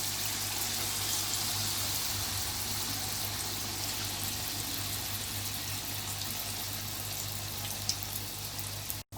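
Sweet appam batter deep-frying in hot oil in a kadai: a steady sizzling hiss, easing off slightly as it goes, with a faint pop or two near the end.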